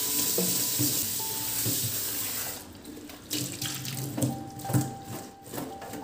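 Tap water running into a stainless steel sink and over a bag being rinsed, shutting off about two and a half seconds in. Short splashes and drips follow as the wet bag is handled in the sink.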